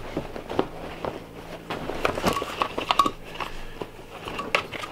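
A pleated window blind being handled and folded together by hand: rustling of the pleated fabric with scattered light clicks and taps at irregular times.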